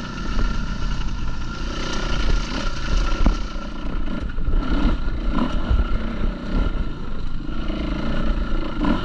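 A 450 dirt bike's engine running under load as the bike climbs a loose, rocky trail, heard from on the bike.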